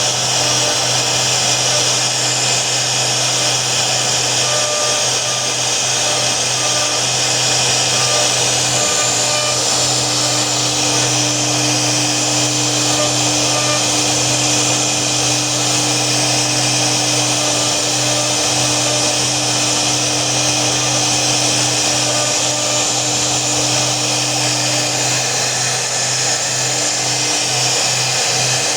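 CNC router spindle running steadily with a high whine and hum as it carves wood.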